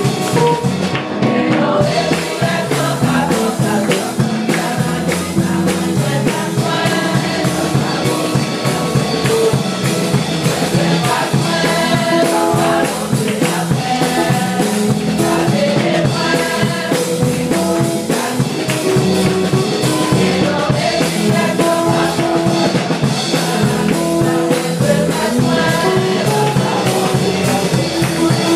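Gospel music: singing over a band with drum kit and a steady beat.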